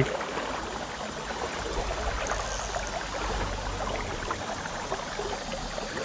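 Shallow river current flowing steadily, with a fine crackling babble of water. A low rumble sits under it for a few seconds in the middle.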